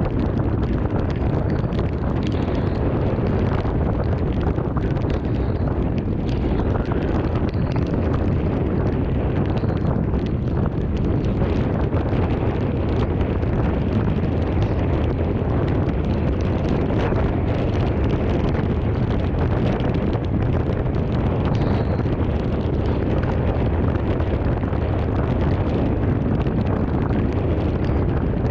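Thunderstorm wind, with a steady loud rush heaviest in the low end buffeting the microphone, and a fine crackle running through it.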